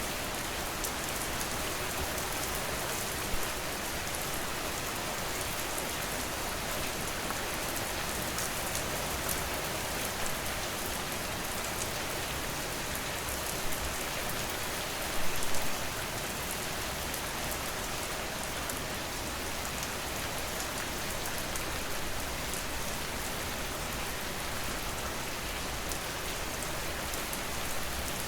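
Steady rain falling on a surface, with individual drops ticking through the hiss. A few louder sharp hits stand out, the strongest a short cluster about halfway through.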